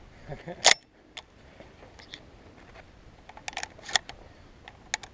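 Sharp metallic clicks and clacks of a semi-automatic shotgun being handled between shots: one loud clack under a second in, then a quick cluster of clicks around three and a half to four seconds in.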